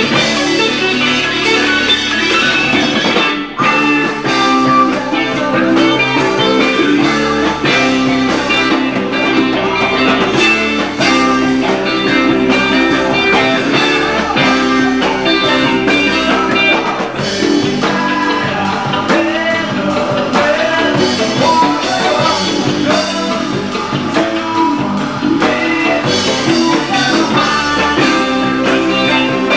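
Live rock band playing with electric guitar and drums, loud and continuous, with a momentary drop in loudness about three and a half seconds in.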